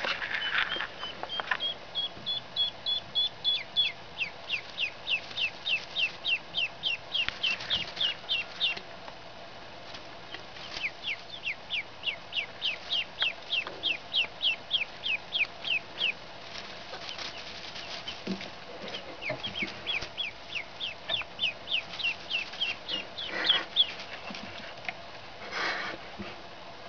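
Three-day-old Blue Swedish and Buff Orpington ducklings peeping: runs of quick, high, falling peeps, about three a second, broken by short pauses.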